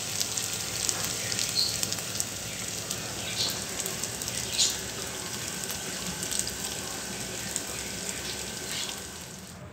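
Hot oil sizzling in a frying pan as vegetable cutlets shallow-fry, a steady hiss with scattered small crackling pops that eases off near the end.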